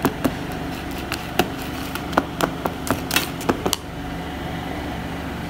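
A plastic spoon stirring powdered hair dye mixed with water in a plastic pot, tapping and scraping against the sides in quick, irregular clicks that stop a little before four seconds in. A steady low hum runs underneath.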